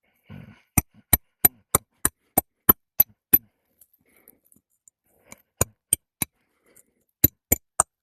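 Hammer driving roofing nails into asphalt shingles to reinstall a 3-tab shingle, with sharp ringing strikes. A fast run of about nine strikes comes first, then two shorter runs of three.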